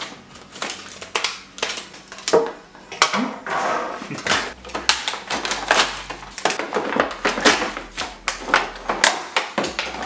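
Plastic and cardboard packaging of a wireless doorbell set being pulled open by hand: a dense run of crinkling, crackling and sharp clicks.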